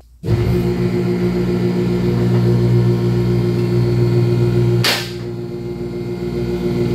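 Two-post car lift's electric hydraulic power unit running with a steady hum as it raises the car body off the rear axle. A sharp click comes about five seconds in, after which the hum runs on a little lower in level.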